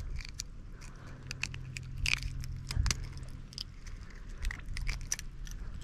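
Irregular clicks and crunches of fishing pliers working the hook of a small metal lure out of a small tailor's mouth.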